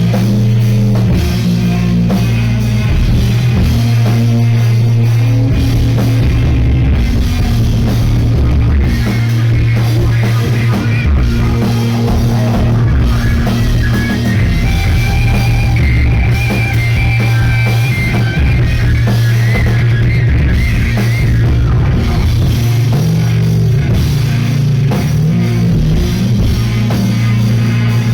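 A rock band playing live, loud and steady: distorted electric guitars over bass and a pounding drum kit, with a high lead guitar line wavering above from about nine seconds in to about twenty-one seconds.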